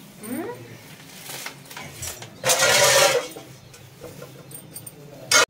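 Large metal cooking pot being handled: a noisy scrape of about a second in the middle and a sharp clank near the end.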